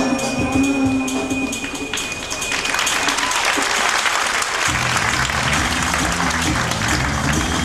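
Bollywood-style show music with sustained tones, joined by audience applause from about two and a half seconds in. A steady low drum beat comes in just before the five-second mark.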